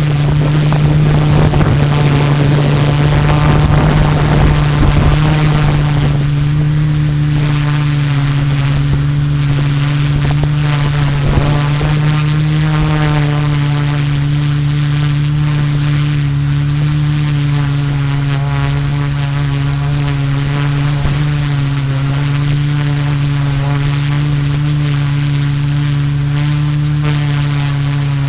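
Multirotor drone's LD Power MT 4010 475 KV motors spinning 13-inch carbon propellers in steady low flight, a loud even hum with overtones, heard from the camera on the drone itself. A rush of wind noise rises over it in the first few seconds.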